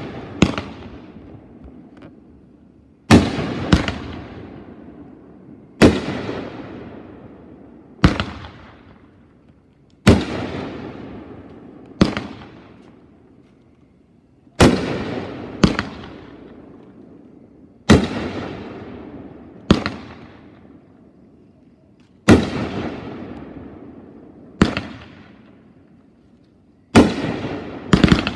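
A consumer firework cake, the "Scuba Diver", firing shot after shot. Roughly every two seconds a sharp bang goes off in the sky, with a few coming in quick pairs, and each is followed by a rush of sound that fades over a second or two.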